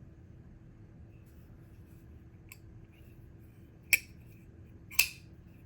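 Reate Tiger titanium folding knife being worked by hand: a faint click, then two sharp metallic clicks about a second apart as the blade snaps on its pivot and steel liner lock.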